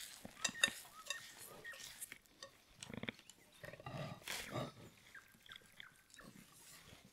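Soft, oily yeast dough being pressed and handled by hand on an oiled tabletop: faint, irregular sticky squelches and small clicks.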